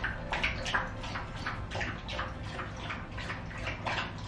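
A dog lapping and slurping at its food in a bowl, about three wet laps a second in an even rhythm.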